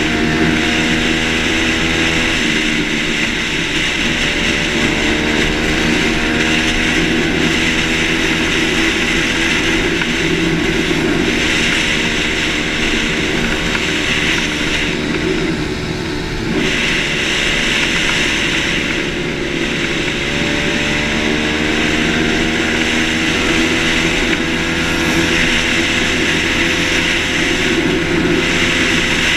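Motocross bike engine running at cruising speed, heard from the rider's helmet camera with wind rushing over it. Its pitch drops sharply about two and a half seconds in and again past the middle, each time climbing slowly back.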